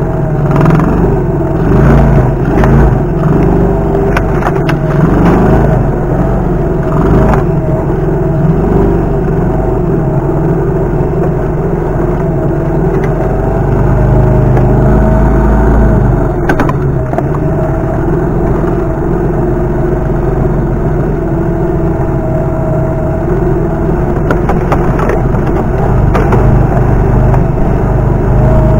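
A 50cc Cub-type single-cylinder four-stroke engine runs steadily under way, its pitch rising and falling a little with the throttle. Short knocks and rattles break in now and then, mostly in the first several seconds and once more about midway.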